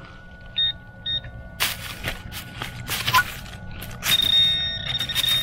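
Metal detector electronic tones: two short high beeps, a steady lower tone, then a long high tone starting about four seconds in. Between them come scrapes and knocks of hands and a digging tool clearing leaf litter and soil at the target.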